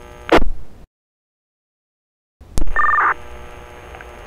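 Two-way fire radio channel: a short burst of squelch noise, a gap of dead silence, then a click and a brief two-tone beep as a radio keys up, followed by steady open-channel static hiss.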